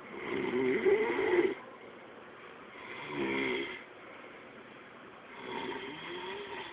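A person snoring: three snores a few seconds apart, the first the loudest, each a rough, wavering rattle.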